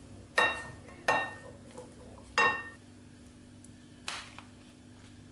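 A spoon knocks three times against a ceramic bowl, each sharp knock leaving the bowl ringing briefly, followed by a lighter knock about four seconds in.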